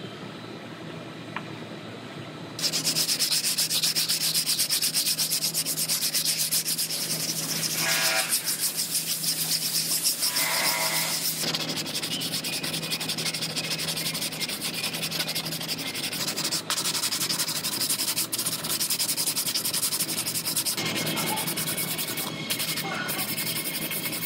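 Body filler on a quarter panel being hand-sanded with sandpaper and a sanding block: fast, continuous back-and-forth scratching strokes, starting about two and a half seconds in.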